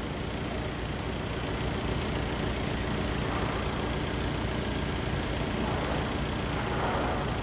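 Forklift engine running steadily at idle, an even low hum with no sharp knocks.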